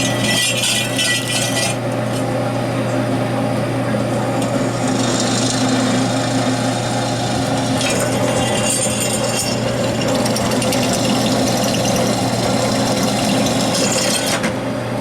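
Electric power tool running steadily on steel, with a constant motor hum and several stretches of harsher, higher-pitched noise where it bites into the metal.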